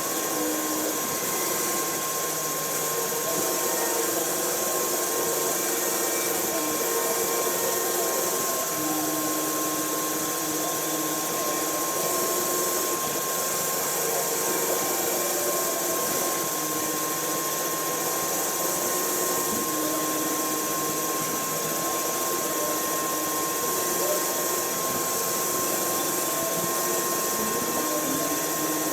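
Milling machine running while it machines a skeleton stock: a steady hiss with a constant whine and motor tones that step up and down in pitch every few seconds.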